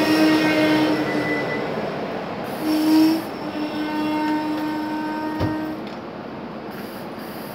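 SEPTA Silverliner V electric commuter train rolling slowly into the station, its running noise carrying a steady whine as it slows. The whine swells briefly about three seconds in and stops a little before six seconds, with a single knock just before it ends.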